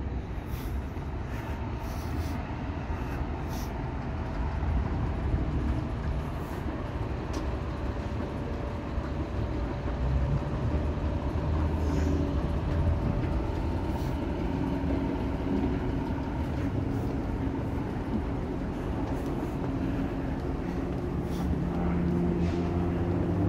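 Steady rumble of road traffic on a busy city street, with vehicles passing and faint engine tones from larger vehicles in the second half.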